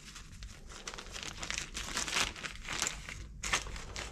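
Small repair-kit parts bag crinkling in irregular crackles as it is handled and opened by hand.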